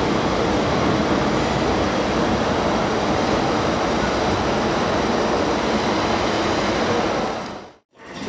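An MTR M-Train running through an underground station behind platform screen doors without stopping: a steady, loud rush and rumble of the passing train. The sound drops away abruptly near the end.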